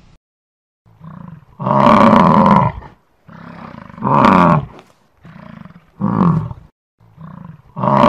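European bison (wisent) bellowing: a series of four loud, drawn-out roaring calls about two seconds apart, each preceded by a softer lead-in call.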